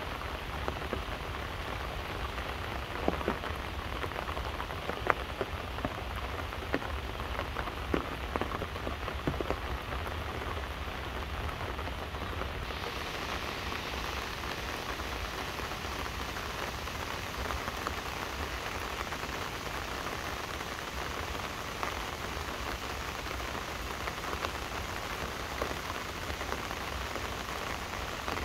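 Steady rain falling under trees, with a few louder single drops hitting close by in the first ten seconds. About twelve seconds in, the rain turns brighter and hissier.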